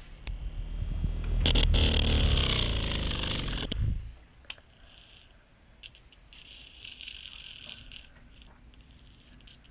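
Small electric fan running right at the microphone: wind buffets it with a loud low rumble, and a motor whine falls in pitch. Both cut off suddenly about four seconds in, leaving only faint scattered sounds.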